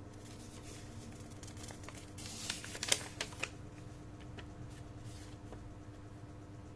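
Brief rustling and a few sharp clicks as things are handled, about two to three and a half seconds in, with the loudest click near the middle, over a faint steady hum.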